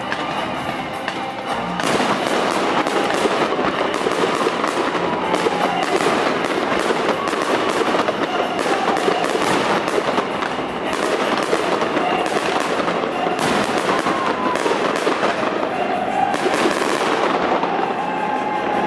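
Crowd applauding, a dense clapping that breaks out suddenly about two seconds in and keeps going, with faint music behind it.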